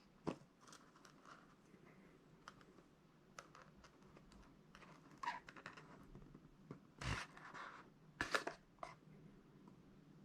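Packaging being handled by hand during an unboxing: scattered light clicks, scrapes and rustles, with a few louder knocks, the loudest about eight seconds in.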